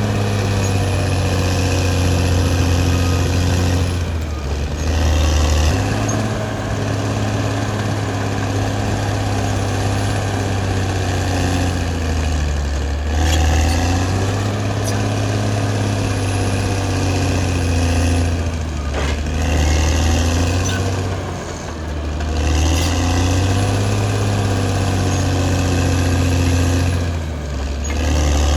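Caterpillar D6R XL bulldozer's diesel engine running continuously under working load, its pitch dropping and rising again every few seconds as the load changes.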